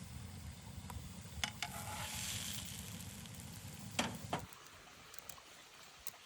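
Food sizzling and frying in a pan, with a few sharp clicks of a utensil against it; about four and a half seconds in the frying stops abruptly, leaving a quieter background with faint ticks.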